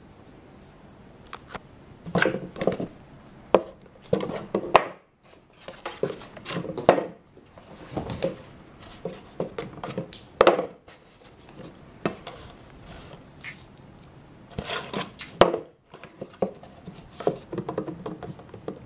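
Small Shih Tzu–Maltese mix dog batting and pawing at a cardboard milk carton and scrabbling on a wooden floor: irregular taps, knocks and scuffles that come in bunches, with short pauses between.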